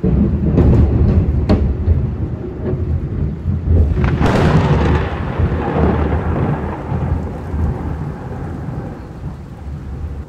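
Thunderstorm: deep rolling thunder with a few sharp cracks in the first two seconds and a louder crack about four seconds in, then a long rumble slowly dying away, over the steady hiss of heavy rain.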